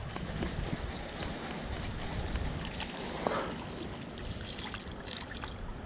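Wind buffeting the microphone in a steady low rumble, over the wash of choppy water.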